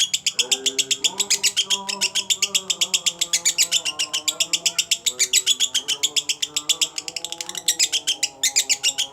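Lovebird singing a rapid konslet-style song: an almost unbroken run of evenly spaced high chirps, about nine a second, with a brief break about eight seconds in.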